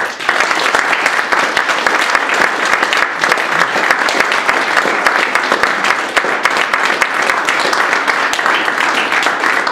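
Audience applauding: dense clapping from many hands that starts suddenly and stays loud and steady throughout.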